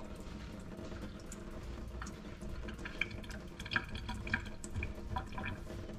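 Water dripping into a stainless steel sink, with small scattered clicks from the wet pliers' joint being worked open and shut, over a low steady hum. The joint has been freed of rust by a day-long soak in white vinegar.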